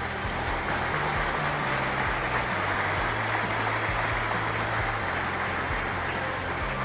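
Background music: a few slow, held low bass notes that change every second or two, under a dense, continuous hissing wash.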